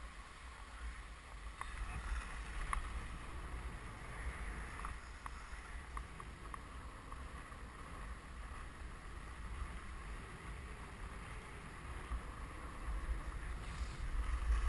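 Steady hiss and scrape of the rider's gear sliding over groomed snow, heard from a camera worn by the rider, with a low rumble of wind on the microphone and a few light clicks in the first half.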